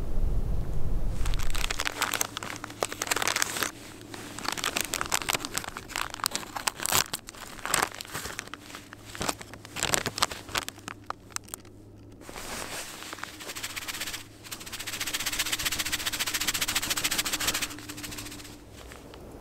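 Irregular crinkling and crackling close to the microphone, then a steady hiss for a few seconds near the end.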